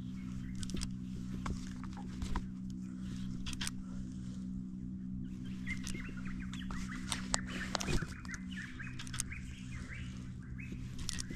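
Small birds chirping, busiest in the second half, over a steady low hum, with a few short clicks here and there.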